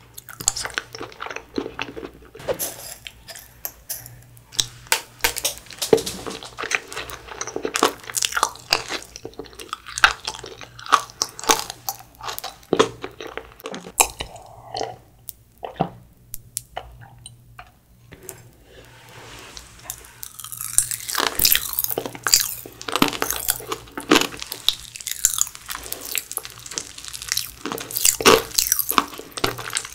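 Close-miked chewing of soft, sticky glutinous rice cake: irregular wet smacks and mouth clicks. Gulps of milk come in a quieter stretch about halfway through.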